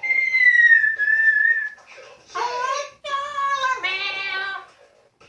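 Amazon parrot whistling one long clear note that drifts slightly down over about two seconds, followed by a short rough call and then a longer, wavering, voice-like call in a singing tone.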